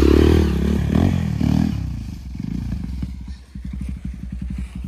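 Dirt bike engine running close by, loud for the first couple of seconds, then settling to a low idle with an even putter.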